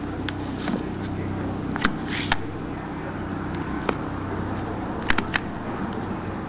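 A steady low hum runs throughout, with a few light clicks and taps of a clear acrylic stamp block and card stock being handled and pressed on a wooden table, three of them close together about five seconds in.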